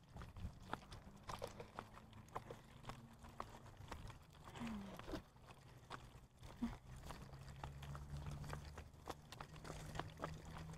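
Faint, irregular clicks and clatter of walking and a baby stroller's wheels rolling over a brick-paved path.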